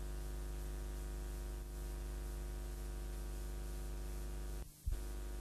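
Steady electrical hum with many evenly spaced overtones over a faint hiss, cutting out for a moment near the end.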